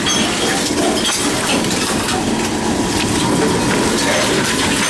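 Envipco CF-1500 reverse vending machines running: a steady mechanical clatter with many small clinks and knocks as containers are taken in and crushed.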